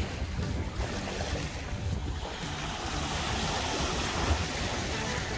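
Small waves washing up onto a sandy beach, with wind buffeting the microphone in a steady low rumble.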